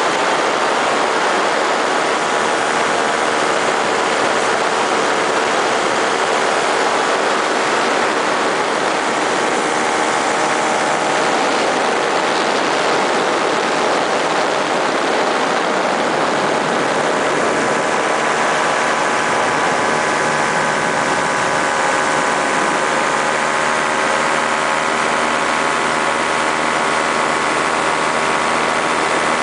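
Paramotor engine and propeller running steadily at cruise in flight, a loud continuous drone whose pitch drifts slightly.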